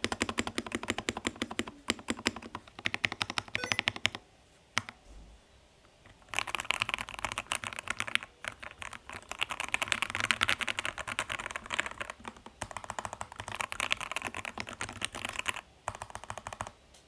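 Ikki68 Aurora mechanical keyboard with lubed Lilac linear switches on an aluminium plate and Geekark keycaps, typed on in fast runs of keystrokes. The typing stops for about two seconds a quarter of the way in, then picks up again.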